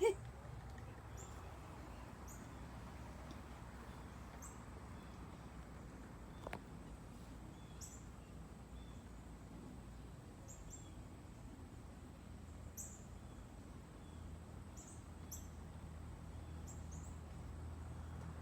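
Small birds chirping: short, high, sharp chip notes every second or two, over a steady low hum.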